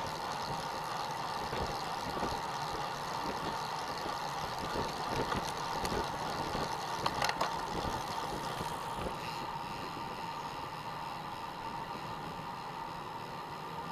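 Steady rush of wind over a bicycle-mounted camera's microphone, mixed with tyre noise on the road, with a few sharp clicks a little past the middle.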